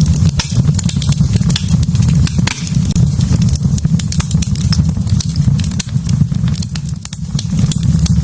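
Wood fire burning in a fireplace, crackling with frequent irregular pops and snaps over a steady low rumble.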